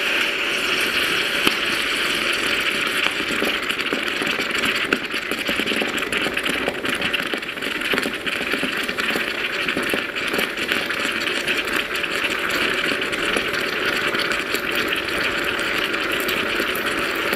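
Plasma electrode discharging in a glass of water: a steady electrical buzz with dense fine crackling, the sound of the underwater plasma discharge demonstrated as a hydrogen plasma boiler's heating principle.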